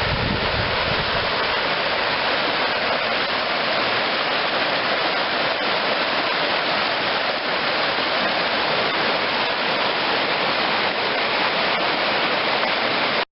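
River waterfall rushing steadily, a loud even wash of falling water. Wind buffets the microphone briefly in the first second.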